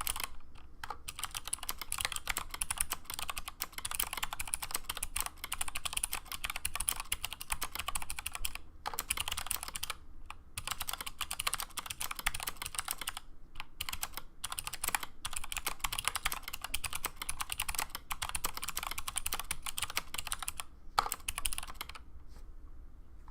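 Typing on a 60% mechanical keyboard with clicky switches (Aristotle click-bar stems in milky Gateron housings, 67 g springs), thick PBT keycaps and an aluminium plate: a fast, dense run of sharp clicks broken by short pauses. There is one louder keystroke near the end, and the typing stops about a second before the end.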